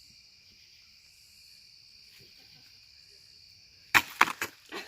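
Steady high-pitched chorus of night insects in the woods. About four seconds in, a quick cluster of sharp knocks and rustles is the loudest sound.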